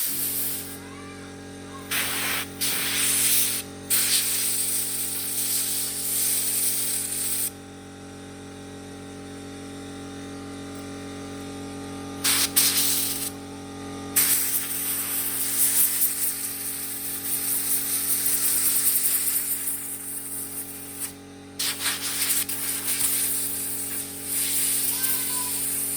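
Compressed-air blow gun hissing in repeated blasts of varying length, some over several seconds, as it blows dust out of a lawnmower air filter. Under the blasts is a steady hum from the running air compressor.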